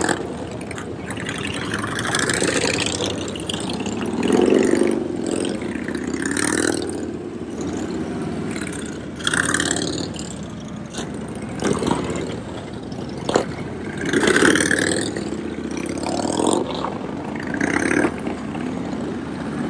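Harley-Davidson V-twin motorcycles running and revving at low speed, the engine sound swelling and fading several times as bikes go by.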